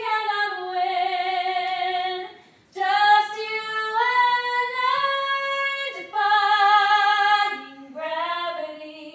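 A woman singing without accompaniment, holding long notes with vibrato over several phrases, breaking off briefly about two and a half seconds in.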